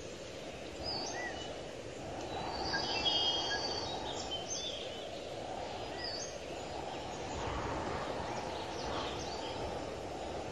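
Small birds chirping now and then, with a short burst of song about three seconds in, over a steady low rumble of outdoor background noise.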